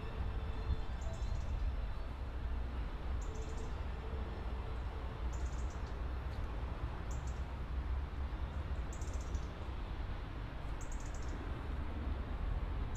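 A small bird giving a short, high chirp about every two seconds over a steady low outdoor rumble.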